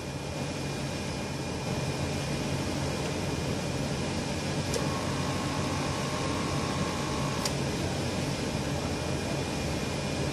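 Steady hum and hiss of an inkjet printer's machinery. About halfway through, a click starts a faint steady whine that runs for nearly three seconds and stops with another click, as the ink purge button on the printhead panel is pressed to push ink through the heads.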